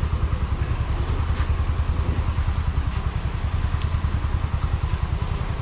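Engine of heavy construction machinery at a piling rig, running steadily with a low, rapid throb.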